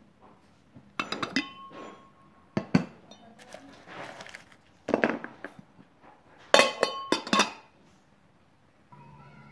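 Glass lid of a glass candy jar clinking and ringing against the jar in several clusters, loudest about two-thirds through, with wrapped sweets rustling as a hand rummages among them.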